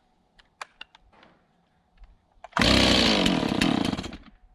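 A few light clicks as the Stihl two-stroke chainsaw is readied, then it is pull-started cold and catches about two and a half seconds in. It runs loudly for about a second and a half, then dies.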